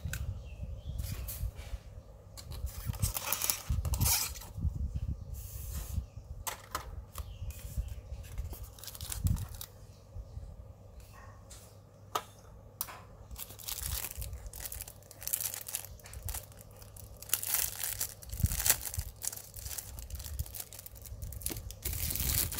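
Polystyrene foam packaging being handled: irregular scraping and rubbing of the foam pieces against each other, with plastic wrap crinkling and scattered light knocks.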